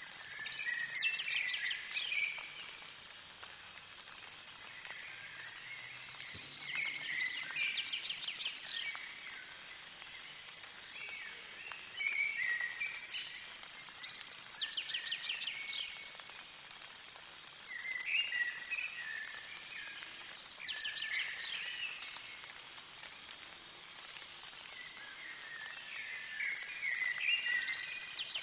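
A songbird singing a short song phrase over and over, with a pause of a few seconds between phrases, about eight times.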